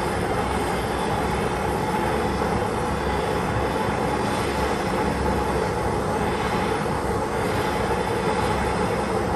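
Handheld gas blowtorch flame burning with a steady hiss, heating a swaged 22 mm copper pipe joint while solder is fed in.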